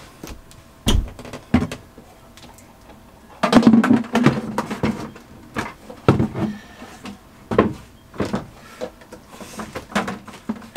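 Orange 5-gallon plastic bucket being handled as a plastic bottle is set down inside it: scattered hollow knocks, thumps and scrapes of plastic, loudest about four seconds in.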